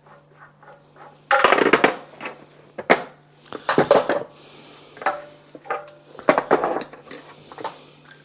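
Plumbing fittings and tools being handled, clattering and clinking in several short irregular bursts, with a few sharper knocks.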